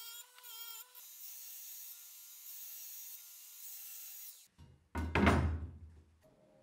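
Steel being ground with power tools: a bench grinder's wheel on a rusty steel plate with a steady motor whine, then a belt grinder with a steady whine and hiss. About five seconds in, a loud low thump with a falling swish.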